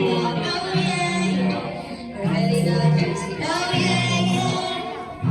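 Live singing with instrumental accompaniment: a voice carries a melody over sustained low backing notes.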